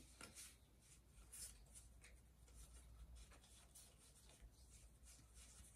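Near silence: room tone with a low steady hum and a few faint, soft rustles of handling.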